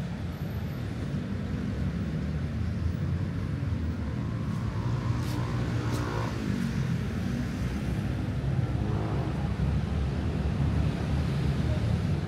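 Street traffic: a steady low rumble of vehicles, with one vehicle passing about halfway through, its engine pitch falling as it goes by.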